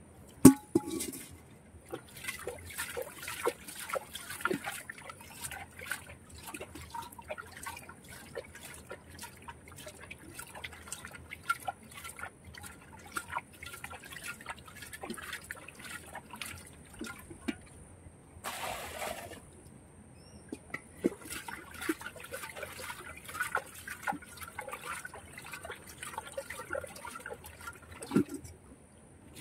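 Hands groping and sloshing in shallow muddy water, with many small splashes and drips. There is a sharp knock about half a second in and a short hiss near two-thirds of the way through.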